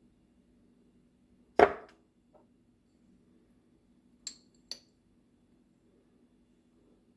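Kitchenware handled on a worktop: one loud knock of something set down, then two short, bright clinks about half a second apart, over a faint steady low hum.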